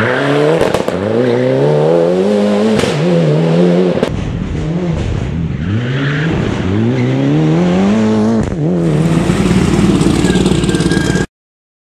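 Mitsubishi Lancer Evolution hillclimb car accelerating hard. The engine note climbs again and again, with a brief drop at each upshift. The sound cuts off abruptly near the end.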